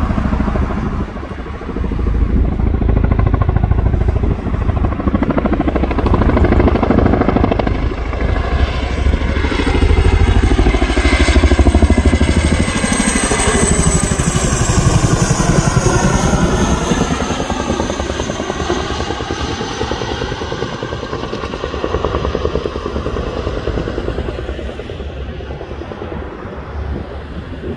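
RAF Chinook tandem-rotor helicopter flying low overhead with a fast, heavy rotor beat. It grows loud, its pitch drops as it passes overhead about twelve to fourteen seconds in, and it fades as it moves away to come in to land.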